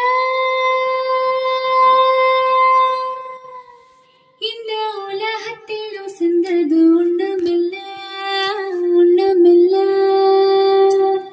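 A woman singing solo, played back through S60 tower loudspeakers on a class-D amplifier as a listening demo. She holds a long note that fades out about four seconds in, then starts a new phrase with quick ornamented turns that ends on another held note.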